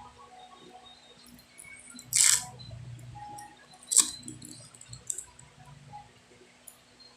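Small handling noises on a repair bench: a short scraping hiss about two seconds in, a sharp click about four seconds in, and a few lighter clicks.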